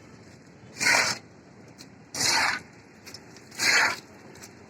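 Rough scraping in three regular strokes, each about half a second long and about one and a half seconds apart, like a hand tool worked over a gritty construction surface.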